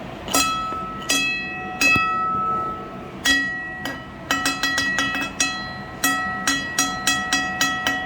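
Metal fire alarm bell gong struck by hand, ringing with a bright, decaying tone after each strike. A few spaced strikes come first, then a quicker run of about three to four strikes a second from about halfway in.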